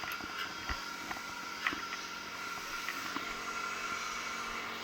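RC race boat engines running on the water, heard as a steady high whine, with a few faint clicks.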